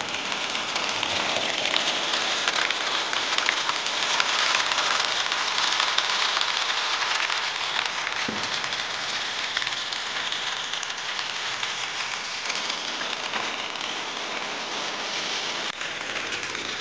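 Water pouring steadily from a PVC pipe outlet and splashing into a fish tank, a continuous rushing, rain-like sound.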